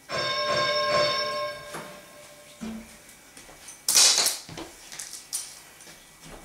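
Interval timer's signal tone ringing for about a second and a half, marking the switch from rest to work in a Tabata round. About four seconds in, a jump rope slaps the floor hard, followed by a few lighter taps as skipping starts.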